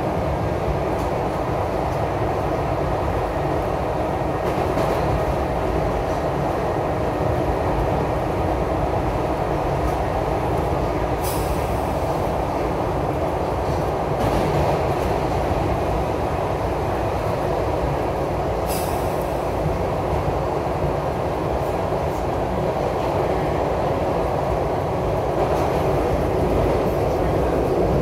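SEPTA Broad Street Line subway train running through the tunnel: a steady rumble of wheels on rail. Two brief high-pitched bursts come about eleven and nineteen seconds in.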